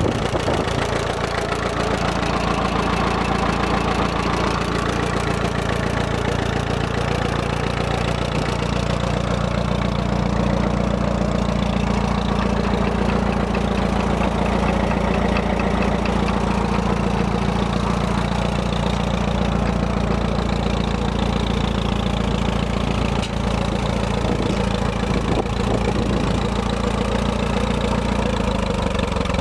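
1946 Case DC tractor's four-cylinder engine running steadily, its note shifting slightly near the end.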